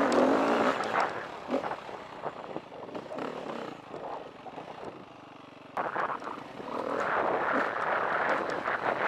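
KTM 350 EXC-F dirt bike's single-cylinder four-stroke engine pulling hard on a hill climb, easing off around the crest a few seconds in, then getting back on the throttle about six seconds in, with wind rushing over the helmet camera's microphone.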